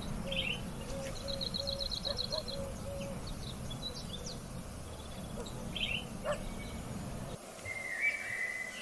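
Several birds calling over a steady low rumble: a quick run of high, evenly spaced notes, scattered short chirps and a row of low repeated notes. The rumble cuts off abruptly near the end, and a steadier high call follows.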